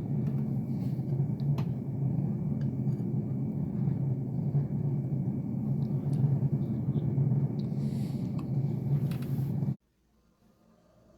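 Steady low rumble with a few faint clicks, cutting off abruptly near the end and leaving near silence.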